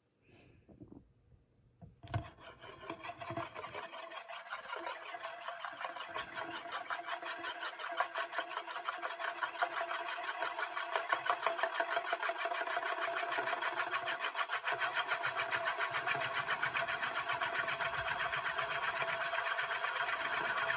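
Euler's disk, a heavy steel disc, set spinning on its mirrored base with a sharp click about two seconds in, then rolling with a fast, rattling metallic whir that grows louder.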